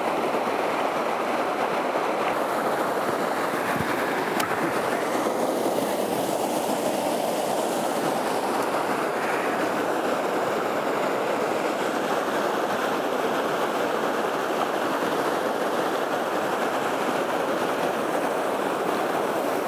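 Steady rushing of a spring creek pouring over a small waterfall.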